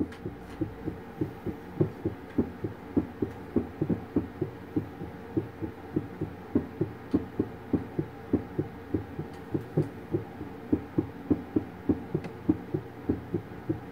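A cat's heartbeat heard through an ultrasound machine's Doppler audio: steady rhythmic pulses, about three a second.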